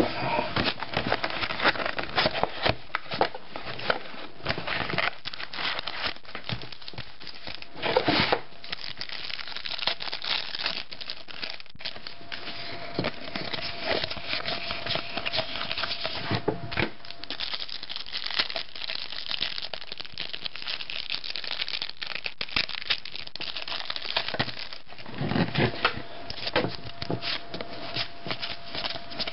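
Shiny foil wrapper of a trading-card pack crinkling and tearing as it is opened, with a steady crackle of small clicks as the wrapper and the cards inside are handled.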